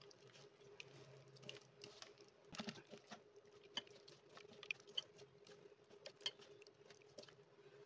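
Faint, irregular wet squelching and patting of fingers working thick gram-flour batter in a stainless steel bowl, breaking up lumps.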